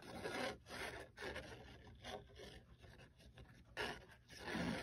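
Plastic nozzle of a tacky glue bottle scratching along textured cardstock as a bead of glue is squeezed out, in short irregular strokes.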